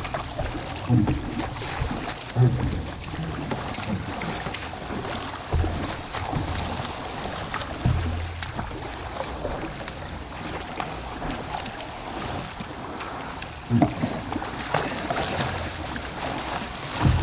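Double-bladed kayak paddle strokes splashing and churning water beside a Hurricane Santee 116 sit-inside kayak's hull, paddled hard, with a few low thumps.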